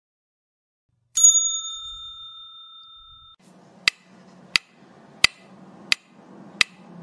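A single bell-like ding about a second in, ringing with several clear tones and fading away over about two seconds. It is followed by a faint low drone with a sharp, steady tick about one and a half times a second.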